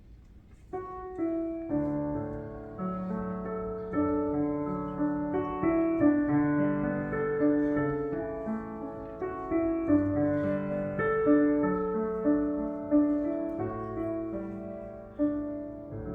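Piano playing slow, sustained chords, starting about a second in: an introduction ahead of choir singing.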